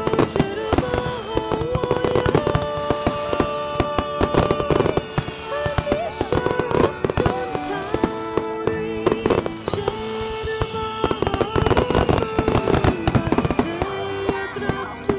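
Fireworks shells bursting in quick succession during a dense barrage, over music with long held notes.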